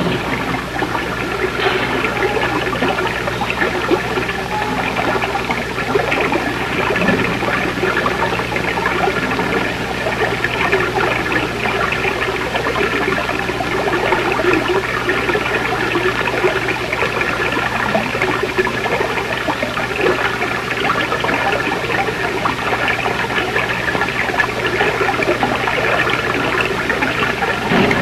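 Steady rushing-water sound effect, standing for the crashed spaceship sinking into the lake.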